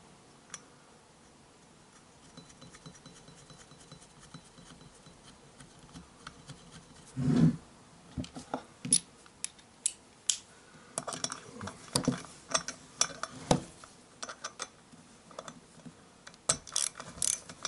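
Metal tools clicking and clinking as the flywheel nut is run down onto the crankshaft of a Stihl 026 chainsaw with a socket driver, with a single thump about seven seconds in. The first several seconds are nearly quiet.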